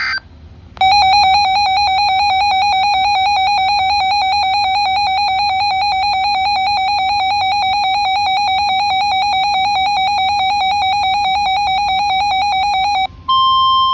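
Weather alert radio's electronic alarm sounding for a severe thunderstorm warning: a harsh, rapidly pulsing buzzer-like tone for about twelve seconds. It cuts off near the end, and a steady, higher single-pitch NOAA Weather Radio warning alarm tone starts.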